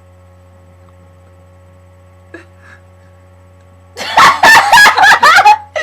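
A young woman's long, very loud burp about four seconds in, lasting about a second and a half, its pitch wavering up and down. Before it, only a low steady hum.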